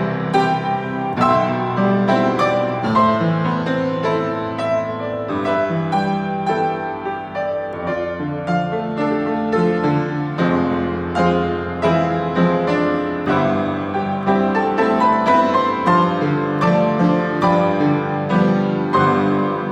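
Piano playing a hymn tune in a steady, unhurried flow of chords and melody notes.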